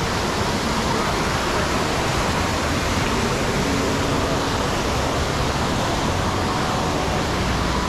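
Steady rushing of water in an indoor swimming pool, with water lapping at the surface close by.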